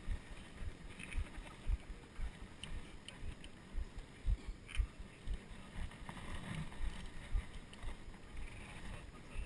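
Irregular low thumps and rumble on a helmet-mounted action camera's microphone, coming every half second to second, with a few faint ticks.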